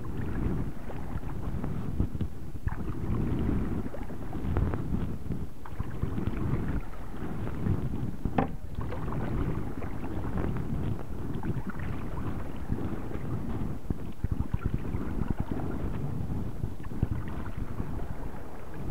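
Wind rumbling on the microphone, with light splashing from a kayak paddle sweeping through calm water.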